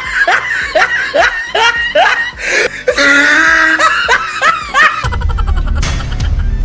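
Laughter: a long run of short 'ha' syllables, each falling in pitch, about three a second. About five seconds in it gives way to background music with a deep bass.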